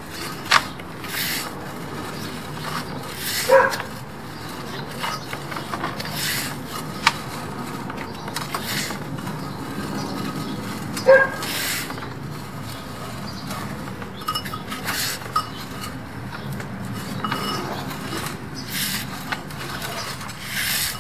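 Sewer inspection camera's push cable being drawn back by hand on its reel, with irregular rubbing and scraping and occasional clicks. Two short, louder sounds stand out, one a few seconds in and one about halfway through.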